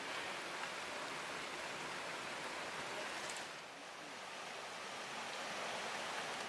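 Steady rushing of a rocky mountain stream, an even water noise that dips slightly about four seconds in.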